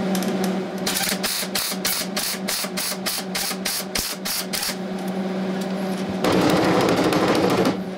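MIG welder stitch welding a sheet steel patch: a quick, even string of short crackling weld bursts, about four a second, then a louder steady crackle for about a second and a half near the end. The welds are kept short so the heat does not build up and make the metal expand and distort.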